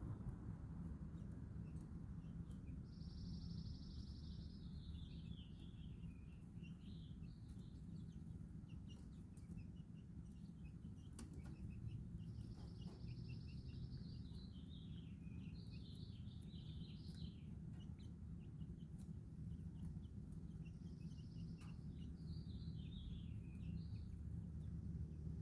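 A small songbird singing the same short song three times, each a high held note that falls into a quick jumble of lower notes, over a steady low background rumble. A single sharp click sounds about halfway through.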